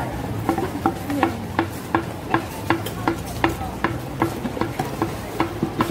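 Wooden pestle pounding som tam in a large mortar: an even series of sharp knocks, about two to three a second, with a wet, squashing edge as the papaya is bruised.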